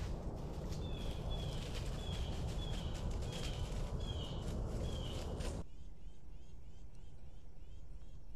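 A bird calling: a run of about seven short, falling chirps, roughly one every two-thirds of a second, over a steady low rumbling background. About two-thirds of the way in the sound cuts to a quieter background with fainter chirps.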